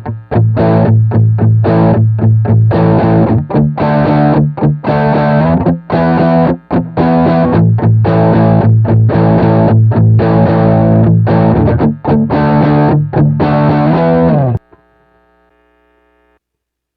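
Distorted electric guitar, a Giannini Stratosonic played through the Sonicake Sonic IR cabinet-simulation pedal and recorded direct, playing a riff of short, repeated chord strokes over steady low notes. It stops abruptly about fourteen seconds in, leaving a faint ringing that dies away.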